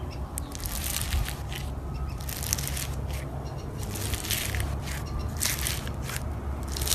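Slime being squeezed and worked by hand, giving crackling, popping bursts about once a second over a low steady hum.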